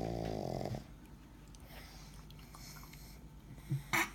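A sleeping dog snoring: one loud grunting snore that stops just under a second in, followed by quiet breathing and a brief sharp noise near the end.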